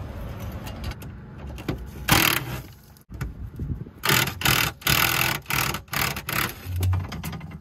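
Short bursts of a pneumatic air tool in a workshop: one about two seconds in, then a quick run of five or six from about four seconds, each lasting a fraction of a second.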